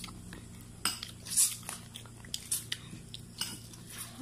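Close-up eating sounds: crispy fried chicken skin crackling and tearing as the piece is pulled apart and bitten, heard as irregular sharp crackles and clicks, loudest about a second and a half in.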